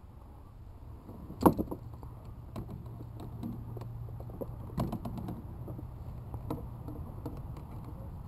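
Knocks and clicks of gear being handled in a plastic kayak: one sharp knock about a second and a half in, a second near five seconds, and lighter clicks and rattles between.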